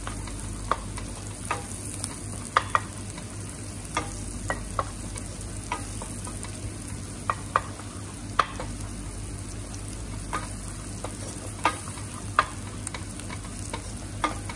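Sun-dried tomatoes, garlic and chilli flakes frying in butter in a pan, a steady sizzle, while a utensil stirs them, knocking against the pan in irregular sharp clicks.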